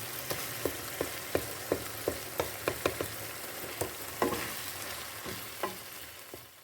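Food sizzling in hot oil in a cooking pot while being stirred, with a utensil clinking sharply against the pot, about three times a second at first and then only now and then. The sizzle fades out at the end.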